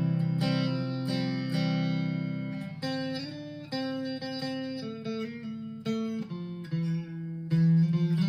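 Clean electric guitar: a Chapman ML1 on its single-coil neck pickup, played through the clean channel of a Blackstar ID:Core V3 20-watt amp. It plays a slow run of ringing chords and picked notes, with a new chord about every second.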